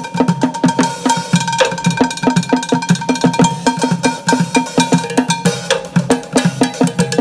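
Two street drummers playing a fast, steady rhythm with sticks on a bucket drum kit: upturned plastic buckets, large plastic water-cooler jugs and metal cooking pots. The hollow plastic strikes are topped by the bell-like ringing of the metal pots.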